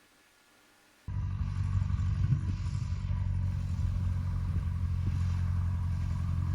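Cessna 150's four-cylinder Continental O-200 engine and propeller running steadily, cutting in suddenly about a second in after near silence.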